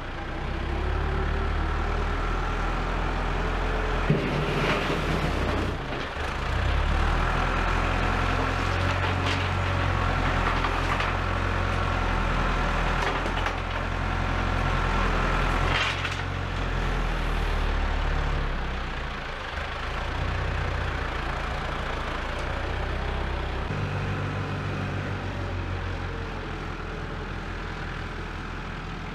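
Heavy diesel engine running, with its speed and load shifting several times. A thin steady whine sounds through the middle stretch, and there are a few short metallic clunks.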